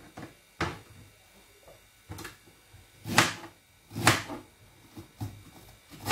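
Kitchen knife chopping fresh ginger on a plastic cutting board: about six separate knocks at an uneven pace, the loudest a little after three and four seconds in.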